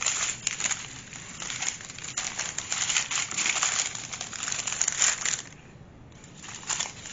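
Small plastic bags of diamond painting drills crinkling and crackling as they are handled, with a brief lull about two-thirds of the way through.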